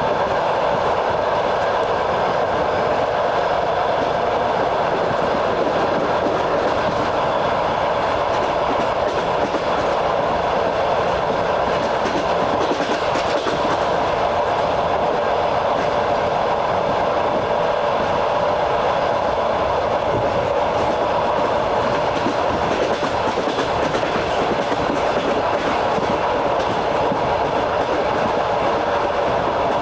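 Passenger train running steadily along the line, heard from on board: a continuous rumble of the cars with the clatter of the wheels on the rails.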